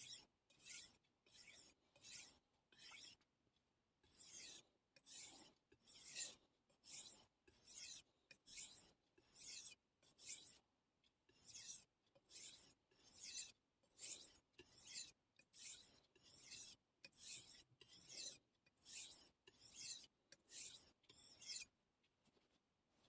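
Steel chef's knife blade stroked back and forth on a Suehiro Debado whetstone, a rasping scrape about twice a second, with short pauses about 3 and 10 seconds in, stopping near the end.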